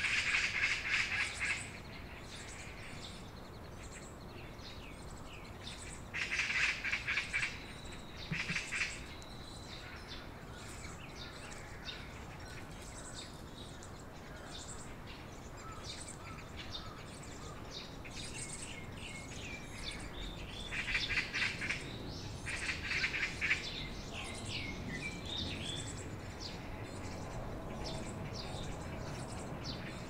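Great spotted woodpecker nestlings begging from inside the nest cavity, in about five loud bursts of rapid chatter of a second or so each: at the start, twice a few seconds later, and twice past the middle. Other small birds chirp thinly in between.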